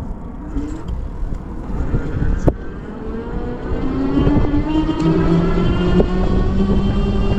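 E-bike electric motor whining, its pitch rising slowly as the bike picks up speed from about three seconds in, over a low wind rumble on the microphone. A sharp click sounds about two and a half seconds in.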